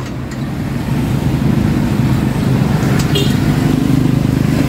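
Small SkyGo motorcycle engine running at a steady idle, growing a little louder about a second in.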